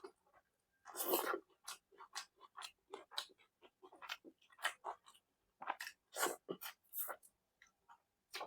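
Close-miked eating sounds: a person chewing soft food, with irregular wet mouth clicks and smacks and a louder, longer chewing burst about a second in.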